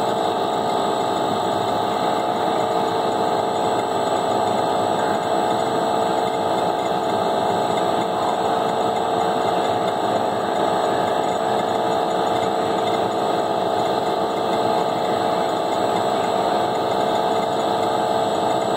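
Visco Jet agitator running steadily, its shaft stirring thick orange juice concentrate in a tote: a constant mechanical hum made of several steady tones over a hiss, with no change in speed.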